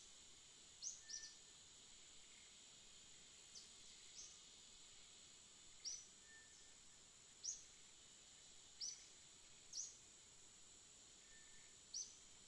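Small birds chirping: short, sharp, high chirps, each falling slightly in pitch, spaced a second or two apart, over a steady high-pitched hiss.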